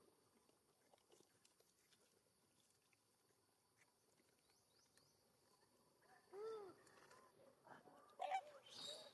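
Quiet for the first six seconds, then a few short animal calls, each rising and falling in pitch, with a sharp click among them about eight seconds in.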